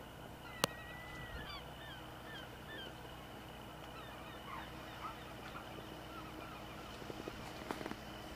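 A motorboat's engine drones steadily in the distance while birds call: a long, slightly falling whistle followed by a quick run of short chirps in the first few seconds, with a few scattered calls later. A single sharp click sounds just over half a second in.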